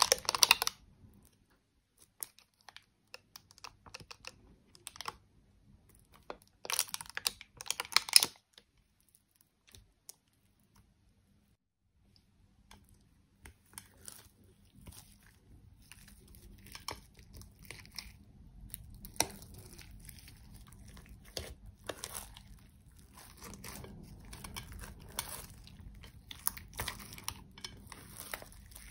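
A makeup brush scrapes and taps eyeshadow out of a plastic palette in short bursts of sharp clicks, right at the start and again around seven to eight seconds. After a few near-silent seconds, from about thirteen seconds in, hands press and stretch clear slime, making a steady run of soft crackles and small pops.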